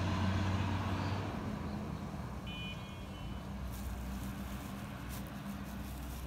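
An engine running with a low steady hum that drops away sharply about a second in and then fades on more quietly. A short high beep sounds near the middle, and faint light clicks follow in the second half.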